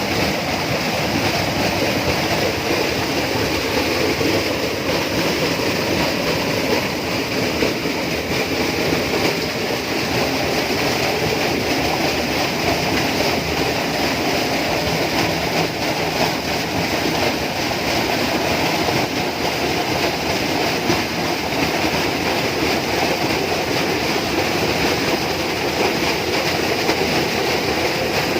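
Steady tropical rainforest ambience: a dense, unbroken wash of sound with no distinct events.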